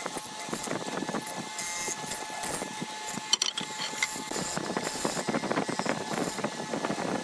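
Mortising machine cutting a mortise into a wooden rail: the chisel crackles and chews through the wood over the steady whine of the motor, with one sharp click about three seconds in.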